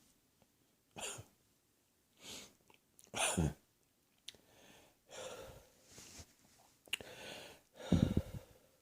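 A person coughing, several single coughs with breathing in between, the loudest about three seconds in and near the end; a cough the cougher says is definitely heading for the chest.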